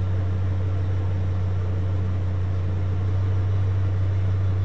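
1999 Dodge Ram 2500's Magnum V10 engine idling steadily with a deep, even drone, heard from inside the cab while the clutch is held in and the truck is put into gear.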